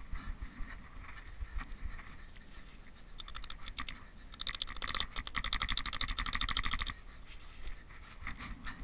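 Metal tent peg being worked into crusted snow at the edge of a lavvu's canvas: a rapid rasping scrape lasting about two and a half seconds midway, amid light knocks and handling rumble.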